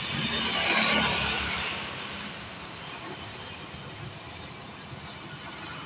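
A motorcycle passes close by, its engine and tyre noise swelling to a peak about a second in and fading away over the next second, leaving a low background of distant traffic.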